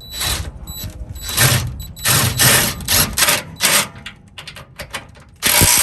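Socket ratchet being worked on sway-bar bolts: repeated short bursts of ratcheting clicks, about seven strokes with scattered single clicks between them and a last strong burst near the end.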